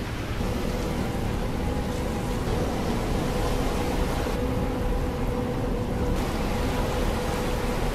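Outdoor shoreline ambience: wind on the microphone and small waves on the rocks, with a steady hum running underneath.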